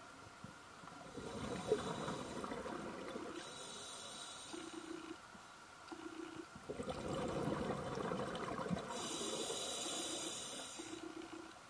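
Scuba regulator breathing, with two long rushes of exhaled bubbles. In the second half a dive computer's 100-foot depth alarm beeps short low beeps about once a second.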